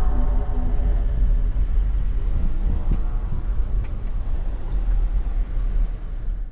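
Toyota LandCruiser 200 series driving on a dirt track, heard from inside the cabin: a steady low rumble of engine and tyres, with the engine note rising and falling a couple of times.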